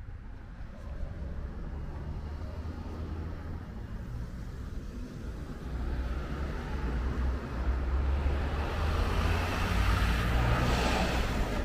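City street traffic: a motor vehicle's engine rumbling as it draws nearer and passes close by, growing louder from about halfway through and loudest near the end before easing off.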